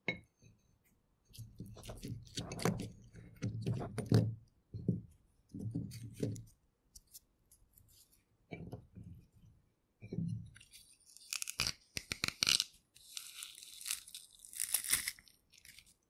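Metal garlic press crushing peeled garlic cloves: a click of the press, then repeated wet crunching and squishing as the handles are squeezed and the pulp is forced through the holes. In the last few seconds it turns to a crisper, hissier crackle.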